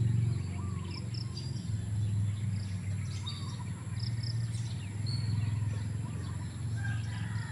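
Outdoor ambience: scattered short bird chirps and a few brief calls over a steady low hum.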